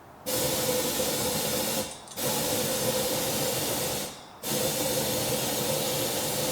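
Compressed air hissing in three long blasts of about two seconds each, with a steady whistle running through each blast and short pauses between them: air being blown through the headlight to loosen dirt inside the lens.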